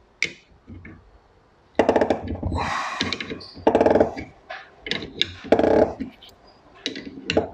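Ratchet spanner clicking in four short bursts as it turns the centre screw of a bearing puller, drawing a spindle bearing off a milling machine spindle.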